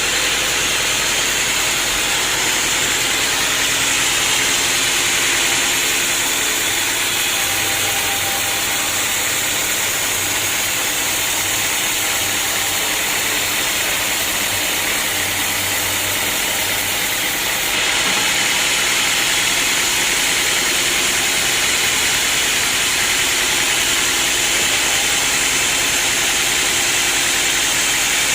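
Sawmill machinery running steadily, a continuous loud mechanical noise with a strong hiss in the upper range. About 18 seconds in, the level rises slightly and the tone shifts.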